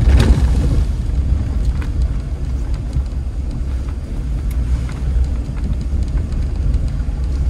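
Vehicle driving along a dirt road, heard from inside the cab: a steady low rumble of engine and tyres, with a few faint clicks.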